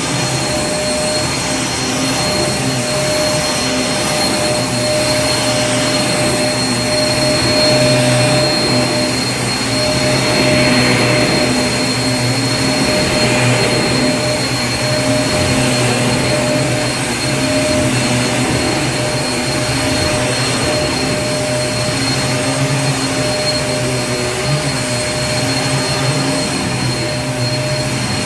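Vacuum cleaner running steadily: a dense rush of air with a constant motor hum and a thin high whine, swelling slightly about ten seconds in.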